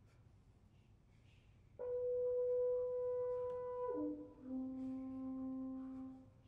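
French horn playing slow held notes: after about two seconds of quiet, a steady high note for about two seconds, then a drop to a lower note that holds for about two seconds and stops shortly before the end.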